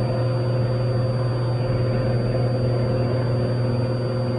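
Cessna 182T's six-cylinder Lycoming engine and propeller droning steadily inside the cabin just after takeoff, with a faint steady high-pitched whine over it.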